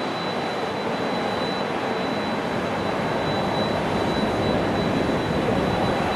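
Jet airliner engines: a steady rushing noise that holds an even level.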